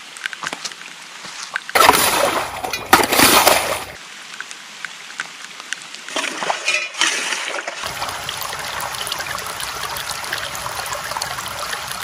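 Muddy water trickling and splashing through a freshly dug drainage channel, in several short takes that switch abruptly.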